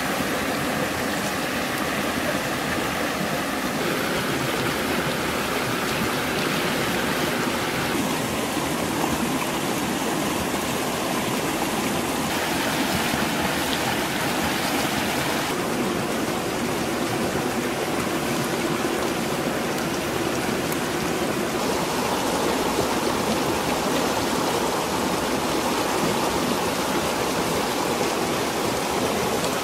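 Fast-flowing rocky stream rushing over stones: a steady rush of water whose tone shifts abruptly a few times.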